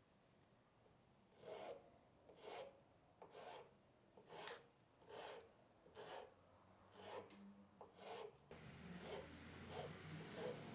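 Faint hand file rasping across the edge of a knife's burlap micarta handle scales in about nine slow, even strokes a little under a second apart. Near the end the strokes become weaker and quicker, and a low hum comes in underneath.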